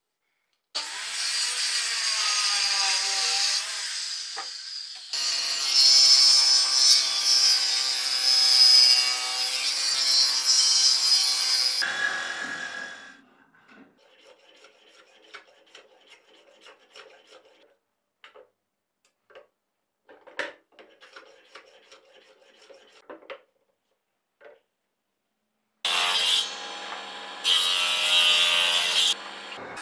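Power saw motor running and cutting walnut for about twelve seconds, its pitch dipping and recovering under load. Then come faint, broken strokes of a hand tool working the wood. Near the end a table saw runs and cuts a small piece of wood.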